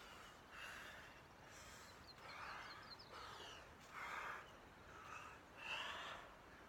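A person breathing hard in short, faint huffs, about one a second, as if exerting during a workout.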